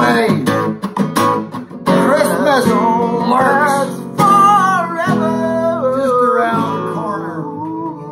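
Music: a strummed acoustic guitar with a voice singing a melody over it.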